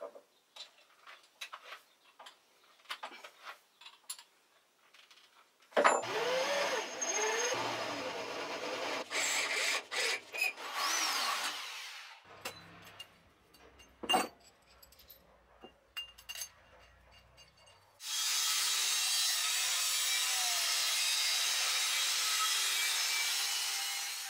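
Light clicks and taps of steel parts being handled, then several seconds of loud, uneven power-tool noise on metal. For the last six seconds an angle grinder mounted as a cut-off saw runs steadily, its abrasive disc cutting through steel.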